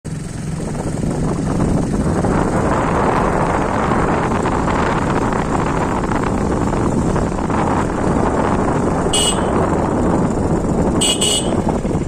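Steady road and wind rumble of travelling in a moving vehicle, with a short high horn beep about nine seconds in and two quick beeps near the end.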